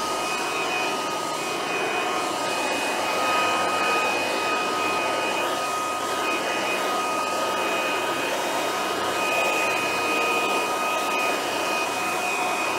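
Corded electric leaf blower running steadily, a rush of air with a high whine over it, blowing debris off artificial turf.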